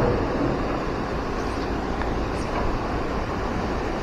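Fast-flowing river rushing over boulders and rocks: a steady, even rushing of water.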